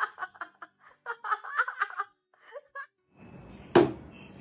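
A person laughing in quick, choppy bursts for about three seconds. Then steady background noise starts, with one sharp thump a little before the end.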